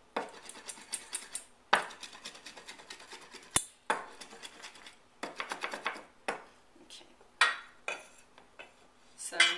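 Two-handled mezzaluna rocked back and forth across a wooden cutting board, chopping cilantro fine. The blade makes quick runs of taps on the wood, with several sharper knocks among them.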